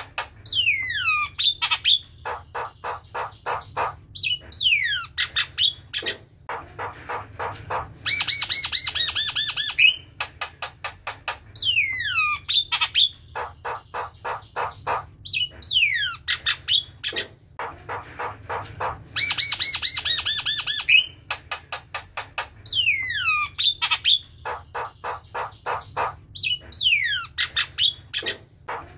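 Javan myna singing its chattering song: steep falling whistles, runs of fast rattling chatter and harsh squawks. The same sequence comes round again about every ten seconds.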